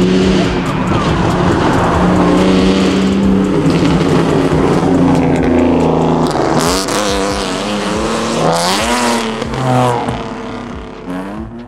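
Sports car engines pulling away, first a steady drone, then from about six seconds in several rising revs with breaks between them as coupes accelerate out through the gears. The sound fades away near the end.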